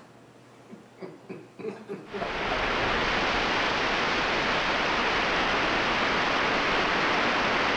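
A few faint knocks, then about two seconds in a loud, steady static hiss starts suddenly and holds unchanged.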